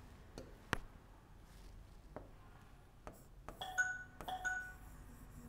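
Pen writing on the glass screen of an interactive whiteboard: a few faint clicks and taps, the sharpest just under a second in, then two short squeaks of the pen tip about four seconds in.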